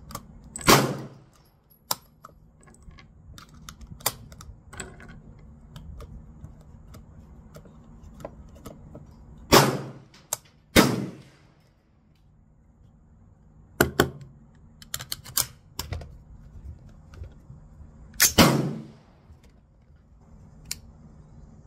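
Small metallic clicks of 300 Blackout cartridges being pressed one by one into an AR rifle magazine. Four loud rifle shots ring out on the range: one near the start, a pair about ten seconds in, and one near the end.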